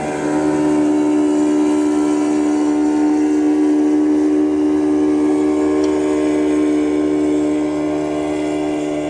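Outboard motor of a small aluminum fishing boat running at speed, a steady engine drone that swells just after the start and eases slightly near the end as the boat passes.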